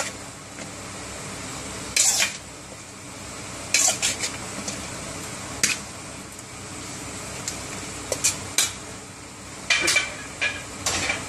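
Sliced luffa being tipped from a metal plate into an aluminium pot of broth: short metal clinks and scrapes against the pot, every second or two, over a steady hiss.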